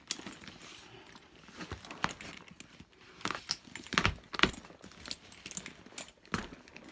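Metal strap clips and hardware of a Rebecca Minkoff Morning After leather handbag clinking and clicking as the strap is hooked and the bag is handled by its straps, with some rustling of the bag. The loudest knocks come about four seconds in.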